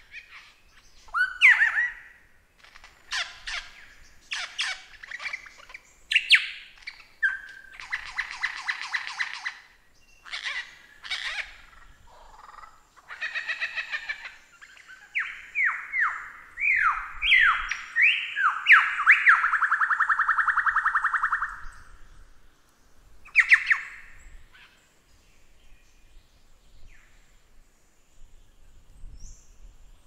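Lyrebird singing a varied run of loud calls: sweeping whistles and short bursts, rapid trills, and a quick series of falling notes that leads into a long trill. The song falls almost silent for the last few seconds.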